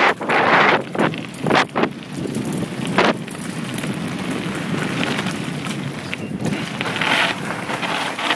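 Wind buffeting a camera microphone on a mountain bike riding fast downhill, with tyres rushing over a dirt and gravel trail. It comes in heavy gusts at first, with a few sharp knocks from the bike, then settles into a steady rush.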